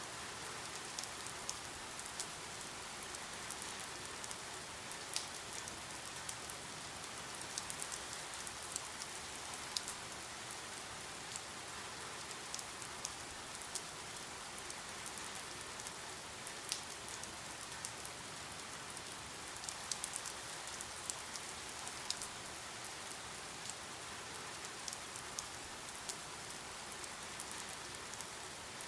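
Steady rainfall: an even hiss of rain with frequent distinct drops ticking on a hard surface.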